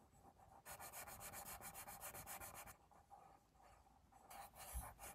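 Pencil graphite scratching across paper on a clipboard in quick, even strokes for about two seconds, then a shorter burst of strokes near the end.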